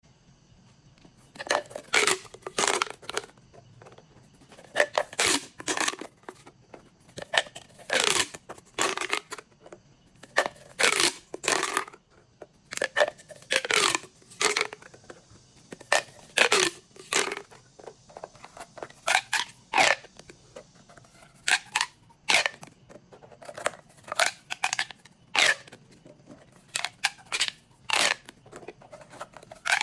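Pop tubes, ribbed plastic fidget tubes, being pulled out and pushed together, each stroke giving a short crackling zip. The strokes come in pairs or short runs every second or two, some with a falling pitch.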